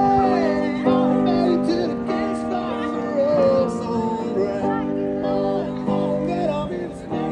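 Live street music: a melody line gliding over steady held chords.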